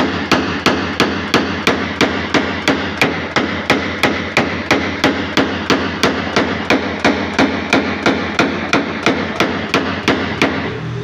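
Small hammer tapping a knockdown punch against a steel car body panel in paintless dent repair, about three even taps a second, stopping near the end.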